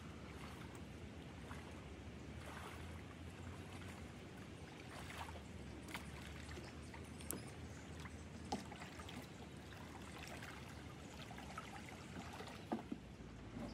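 Faint lapping or trickling of lake water over a low steady background, with a few sharp small clicks or knocks, the clearest a little past the middle and near the end.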